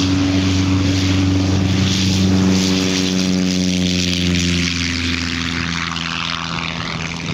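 Engine and propeller of a giant-scale radio-controlled model plane running at take-off power during its take-off run and lift-off: a steady drone whose pitch falls gently as it passes and climbs away.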